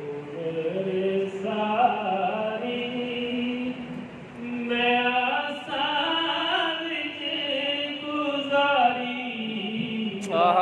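A man singing a naat, a devotional song to the Prophet, solo in long drawn-out held notes, with a short break about four seconds in.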